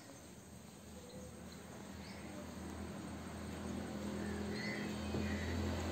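Faint outdoor ambience with scattered short bird chirps, under a low steady hum that grows steadily louder.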